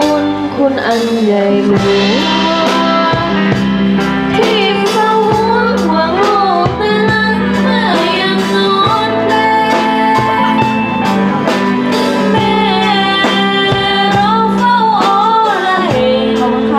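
Live music: a singer with instrumental accompaniment and a regular beat, playing continuously.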